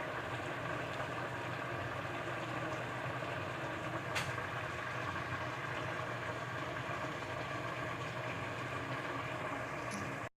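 A steady mechanical hum with a faint hiss, and a single click about four seconds in.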